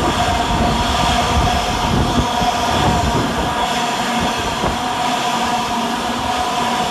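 Two coupled Class 331 electric multiple units passing through, a steady electric whine from the traction equipment over the rumble of wheels on the rails; the rumble eases after about three seconds.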